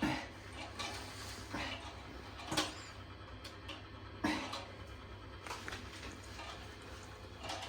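Hard plastic toilet parts being handled and tightened by hand: a few sharp knocks and clicks, the loudest about two and a half and four seconds in, over a steady low hum.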